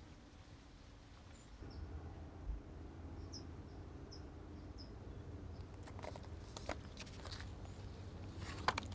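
Faint, short bird chirps repeating over a low steady rumble, with a few brief rustles and light knocks in the second half.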